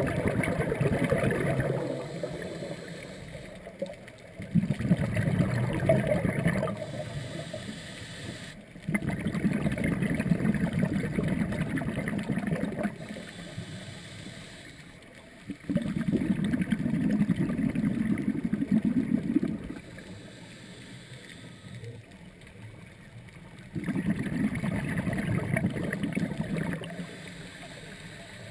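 A scuba diver's exhaled bubbles rushing out of the regulator and past the camera, heard underwater. Five bubbling bursts of two to four seconds each, with quieter breaks of a few seconds between, in the rhythm of the diver's breathing.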